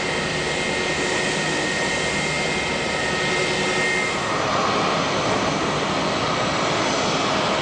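Jet aircraft engines running, a steady loud rush with a thin high whine that fades out about four seconds in.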